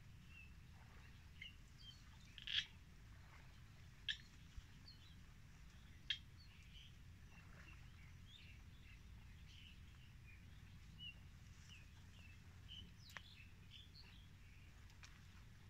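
Scattered short bird chirps over a faint low rumble, with three sharper, louder calls in the first six seconds.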